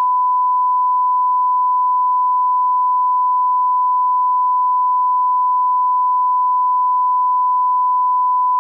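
Line-up test tone played with colour bars: a single steady, unwavering tone at one pitch, held without a break.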